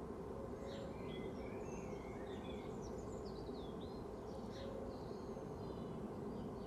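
Outdoor ambience: a steady low hum and hiss with small birds chirping faintly, a scatter of short rising and falling chirps through the first two thirds.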